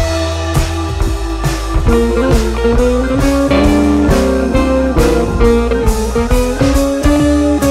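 Background music with guitar, bass and a steady drum beat.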